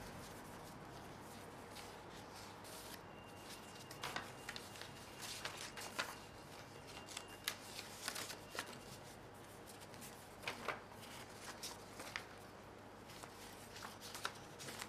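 Paper leaflets being leafed through and handled: faint rustling with scattered short, sharp crinkles and taps, more frequent from about four seconds in.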